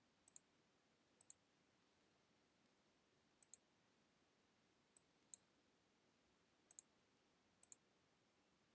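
Faint computer mouse clicks over near silence: about six clicks spread unevenly, each a quick pair of ticks.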